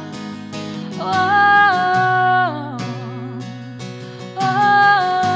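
Worship song: a woman's voice holding two long sung notes over a strummed acoustic guitar.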